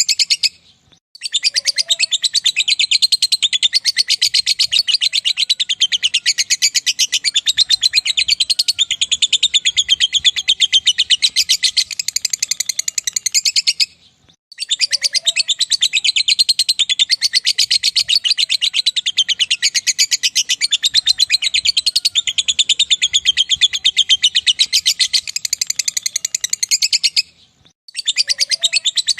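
Lovebird giving its long 'ngekek' chatter: a fast, unbroken run of shrill repeated notes. It comes in bouts of about twelve seconds, split by short pauses about a second in, midway and near the end.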